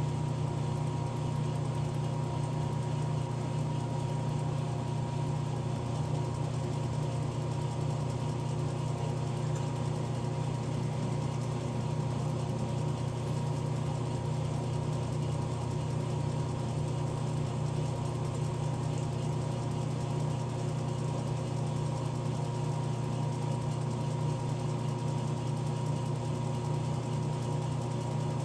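Metal lathe running at a steady speed, its motor and drive giving an even, unchanging hum.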